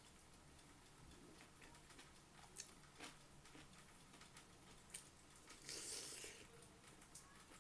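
Faint close-up eating sounds: scattered wet mouth clicks while chewing, then a crunchy bite into a slice of raw bell pepper about six seconds in, the loudest sound.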